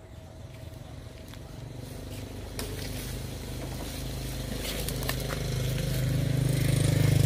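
A motorcycle engine drawing near, its low, even hum growing steadily louder from about two seconds in and loudest near the end.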